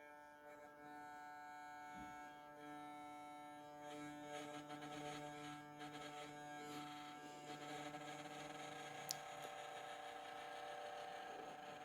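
Bachmann OO-gauge Class 37 model locomotive's electric motor humming faintly and steadily as the loco crawls slowly in reverse, with one small tick about nine seconds in.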